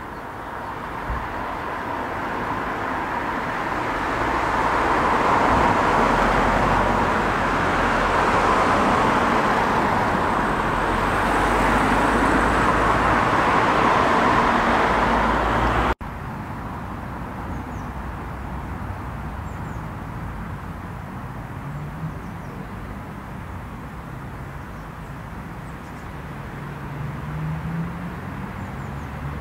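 Road traffic passing close by: a steady rush of tyres and engines that swells over several seconds, holds, then cuts off abruptly. After that, quieter outdoor ambience with a few faint high chirps and a low hum that rises near the end.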